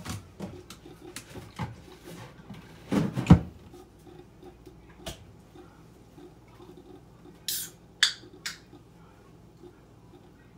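Scattered light knocks and clatter from kitchen handling, with a heavier thump about three seconds in and three short hissing rustles near the end.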